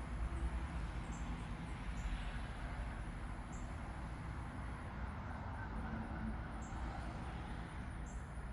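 Steady outdoor background noise: a low rumble with hiss, with faint short high chirps now and then.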